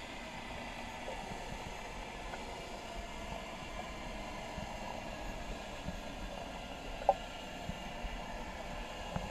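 Steady underwater hiss picked up by a submerged camera, with a single sharp click about seven seconds in.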